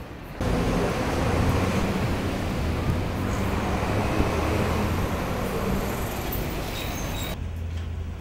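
City street traffic noise with the steady low hum of vehicle engines running. It starts abruptly just after the start and cuts off suddenly about seven seconds in.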